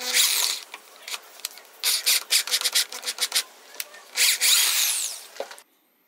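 Power drill boring into a brass valve body, the bit grinding and scraping through the metal in short bursts. The drilling cuts off abruptly near the end.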